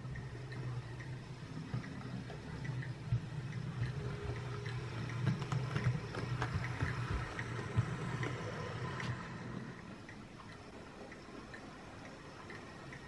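OO gauge model locomotive running along the track: a steady motor hum with light clicking from the wheels on the rails, louder as it passes close and fading after about ten seconds as it runs away.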